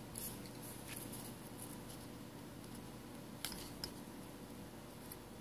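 Faint handling clicks and light scraping as a plastic pry tool and fingers work the metal frame off a Samsung Galaxy S6 Edge, with a few sharp clicks, two close together about three and a half seconds in, over a steady low room hum.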